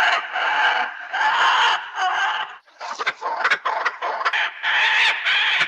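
Giant monster bird's squawking screech sound effects: a run of harsh, raspy calls about a second each, broken in the middle by a choppy stretch of short, rapid clucking squawks.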